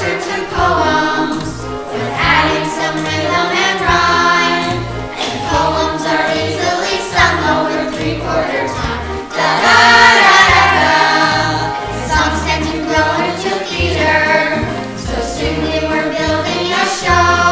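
Young voices singing a musical-theatre song over an instrumental accompaniment with a steady bass line, swelling loudest about ten seconds in.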